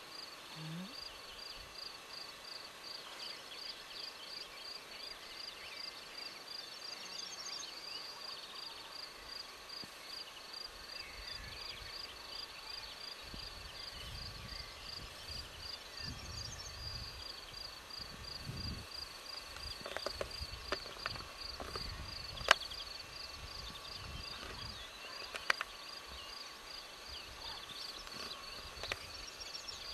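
An insect chirps steadily in a high, evenly repeated pulse. In the second half there are low rustling rumbles and a few sharp clicks.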